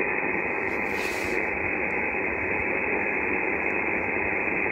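Steady hiss of band noise from a VisAir HF SDR transceiver receiving upper sideband on the 20-metre band through a PAK-12 vertical antenna, with no station audible while the dial is tuned across the band.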